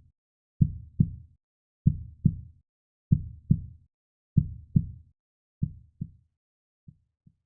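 Heartbeat sound effect: paired low thumps, lub-dub, about every second and a quarter, fading away over the last couple of beats.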